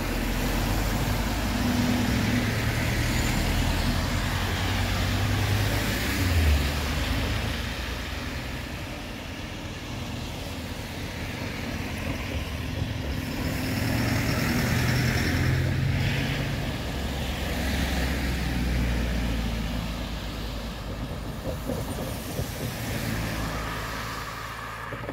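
Road traffic: cars and vans driving over the level crossing on a wet, slushy road. Engine rumble and tyre noise swell and fade as each vehicle passes.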